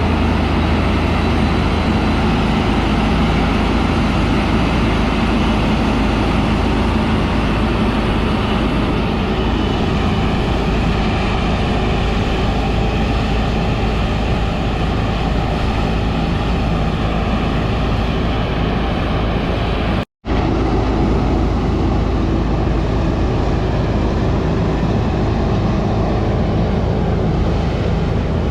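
Heavy diesel farm machinery running steadily under load, with a very brief cut to silence about two-thirds of the way through.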